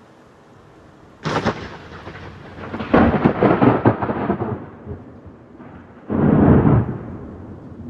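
Close thunder: a sudden sharp crack about a second in, then a loud crackling rumble that fades, and a second loud burst about six seconds in.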